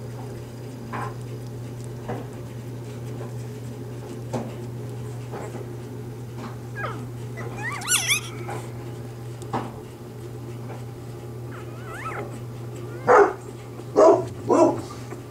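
Newborn Bernese Mountain Dog puppies squeaking and whimpering: scattered short cries, a high wavering squeal about eight seconds in, and three loud short yelps near the end, over a steady low hum.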